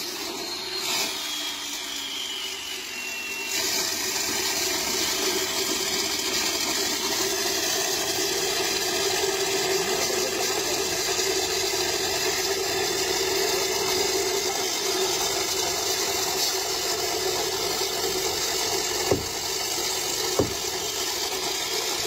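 Electric concrete slab cutter with a 14-inch blade running steadily as it wet-cuts through a concrete roof slab: a continuous even-pitched motor whine under a grinding hiss, with two short sharp knocks near the end.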